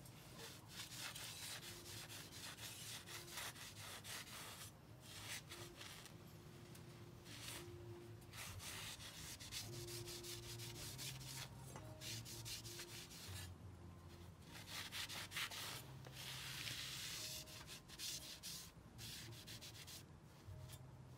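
Cloth in a gloved hand rubbing along a steel katana blade, a series of long wiping strokes with brief pauses between them.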